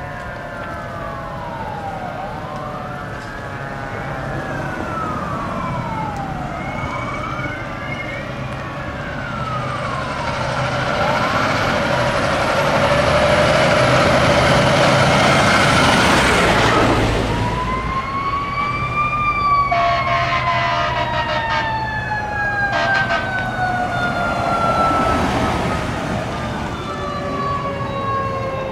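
Fire engine sirens on a code-3 response: a wail sweeping up and down about every two seconds. The sound grows loudest as an engine passes close about midway, and later gives way to long, slowly falling siren tones.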